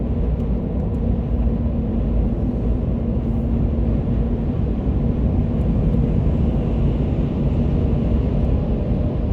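Steady road noise inside a moving car's cabin: low tyre and engine rumble with a faint steady hum.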